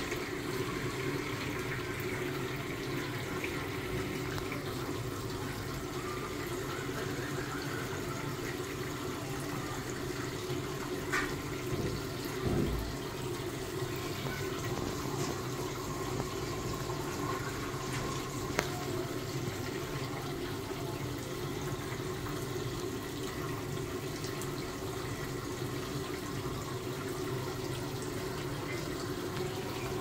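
Beko front-loading washing machine filling: a steady rush of water running into the machine over a low steady hum, with a few brief knocks partway through.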